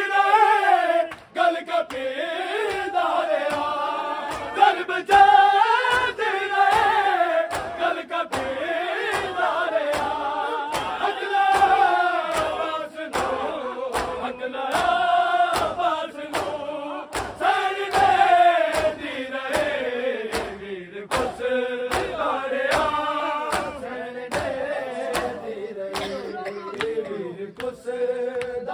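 Men's voices chanting a noha, a Shia mourning lament, in chorus, with the sharp rhythmic strikes of matam beating keeping time about twice a second.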